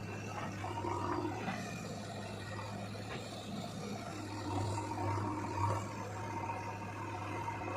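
Diesel engine of a backhoe loader or tractor running steadily at work, a constant low hum with a faint higher whine above it.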